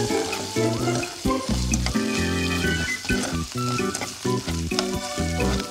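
Ground pork sizzling and crackling in a frying pan as it is stirred and cooked through, with background music of steady, changing notes.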